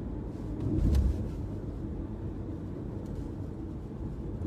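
Steady road and engine rumble inside a moving car's cabin, with a brief, louder low thump about a second in.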